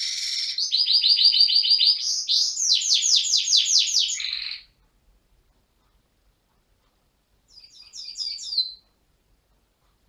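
Gloster canary singing: about four and a half seconds of fast, high rolling trills, then a pause and a short second trilled phrase near the end.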